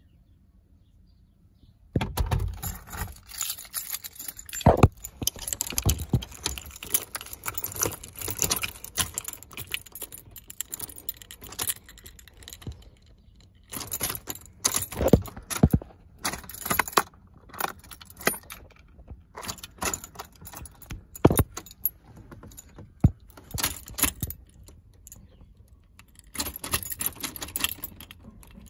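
Metallic jingling and clattering, like keys or small metal objects being shaken and handled. It starts about two seconds in and comes in irregular bursts with short pauses.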